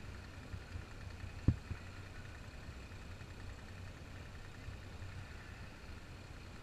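Westerly Centaur's small inboard diesel running steadily, a low even hum under sail, with one sharp knock about a second and a half in.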